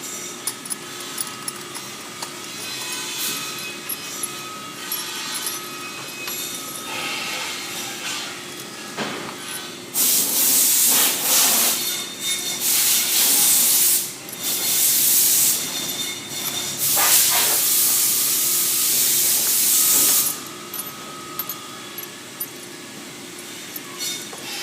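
Loose metal drill bits being sorted by hand into an organiser, with light clinks and taps. Between about ten and twenty seconds in, several spells of loud rushing hiss come and go, each lasting a few seconds. A steady hum runs underneath.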